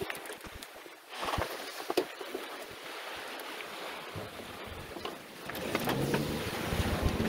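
Wind and water noise on a sailing trimaran under way, with scattered clicks and a sharp knock about two seconds in. Near the end the rush grows louder and more buffeting.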